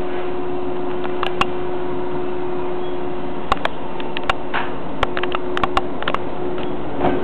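Electric commuter train standing at the platform, its equipment giving a steady hum, with scattered sharp clicks in the middle. Near the end a low whine starts to rise in pitch as the train's motors begin to pull away.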